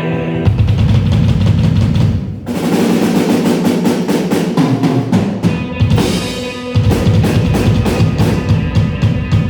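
A live band playing a rock song, led by a drum kit with snare and bass-drum hits and rolls over sustained low bass notes, with a couple of brief breaks in the rhythm.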